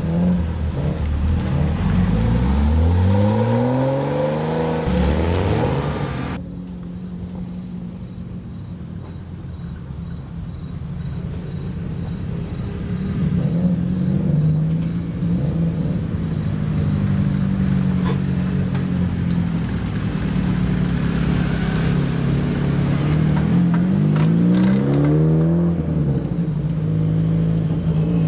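Modified car exhausts: one car revs up and pulls away about two seconds in, engines run steadily after that, and another car rises in revs about twenty-four seconds in.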